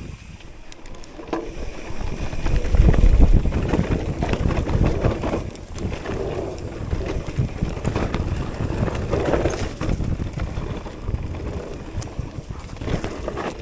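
Mountain bike riding over a rough trail: tyres rumbling over the ground, with the bike knocking and rattling over bumps and wind rumbling on the microphone, loudest about three seconds in.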